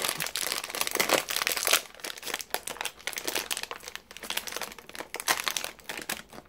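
Crinkly snack wrapper of a pack of amarettini almond cookies being worked open by hand: dense crackling, loudest for the first second and a half or so, then softer and patchier rustling. The packaging is fiddly to open, which she calls infuriating.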